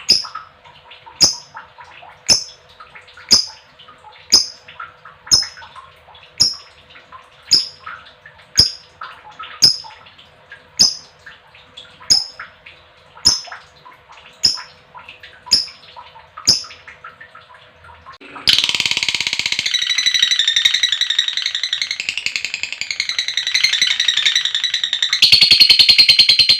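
Lovebird giving sharp, high single calls at an even pace of about one a second over soft chattering, then about 18 seconds in breaking into a loud, continuous rapid trilling chatter, the long 'ngekek' song.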